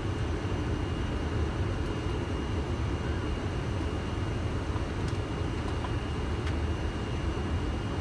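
Steady in-flight flight-deck noise of a Boeing 747-400 on approach: a dense, even rumble of airflow and engines, with a faint steady high tone and a few light clicks.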